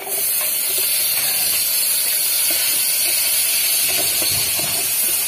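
Chopped garlic dropped into hot oil in a rice cooker pot, sizzling: a loud, steady hiss that starts suddenly as the garlic goes in, the start of sautéing the garlic.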